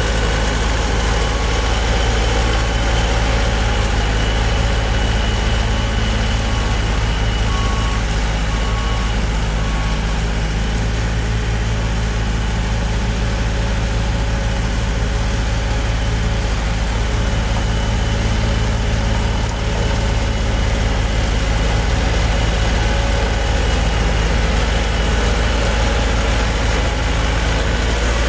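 Heavy diesel vehicle engine idling steadily, with a faint regular beeping in the first ten seconds or so.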